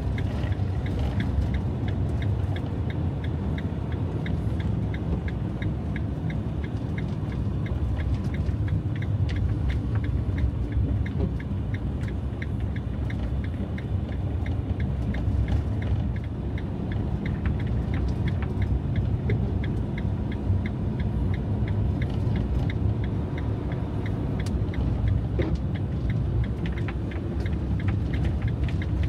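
Fiat Ducato diesel van driving on a snow-covered road: a steady low rumble of engine and tyres, with a faint regular ticking running through it.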